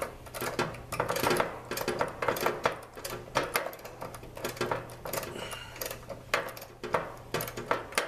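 Ratcheting refrigeration service wrench clicking in quick runs as it turns the liquid line service valve stem closed on an air conditioner's condensing unit, the first step of a manual pump down.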